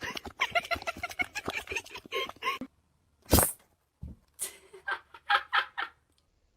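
Rapid clucking calls of domestic fowl in a quick run, which break off abruptly about two and a half seconds in. A single sharp noise follows, then a few more short clucks.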